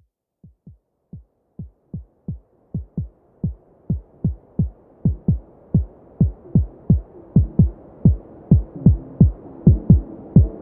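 Electronic dance track intro: a syncopated pattern of deep kick-drum thumps, each dropping in pitch, fades in and grows steadily louder. A soft hiss and a held synth chord join in from about seven seconds.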